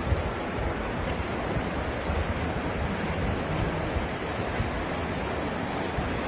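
Fast, churning floodwater rushing steadily, with wind buffeting the microphone in uneven low gusts.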